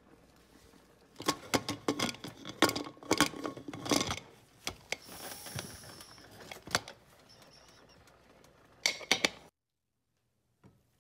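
Metal clinks and knocks of a stainless-steel pressure cooker lid being handled, with a brief hiss about five seconds in. More knocks follow, and the sound cuts off suddenly near the end.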